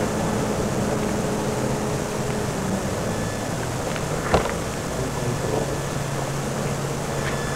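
Steady outdoor urban background noise, a constant rumble with a low hum, broken by one sharp knock a little past four seconds in.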